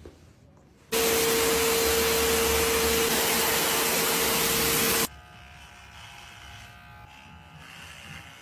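Loud, steady hiss of a small motorized appliance with a single steady hum tone under it. It switches on abruptly about a second in and cuts off about four seconds later, leaving a faint hum.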